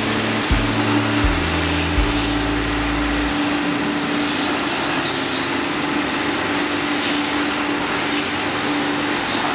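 Pressure washer running steadily, its water jet hissing against a pickup's painted body panels over a constant hum from the washer's pump motor.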